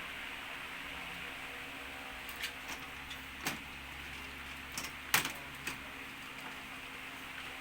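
A few short, sharp clicks and taps from parts and tools being handled during disassembly of an LED TV, the loudest a little past the middle, over a steady background hiss and hum.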